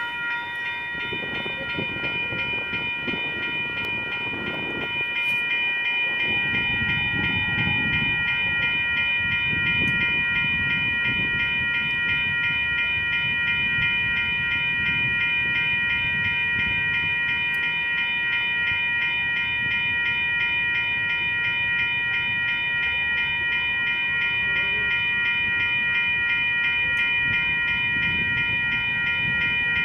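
Electronic railroad crossing bells ringing continuously in a fast, even pulse, with a low rumble underneath. The crossing has activated early for a freight train that is still far off, which the uploader calls a malfunction.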